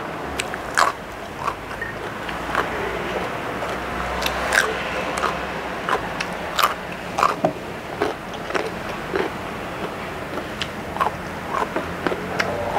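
A person biting and chewing crisp raw vegetables, carrot and cucumber, close to the microphone: irregular sharp crunches about once or twice a second, with wet chewing between them.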